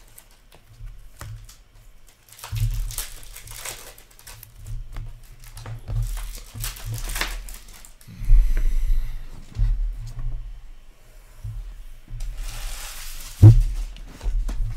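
Hockey trading cards and their packs being handled: rustling and crinkling in spells, with low bumps, and a sharp thump about 13.5 s in as a stack of cards is set down on the counter.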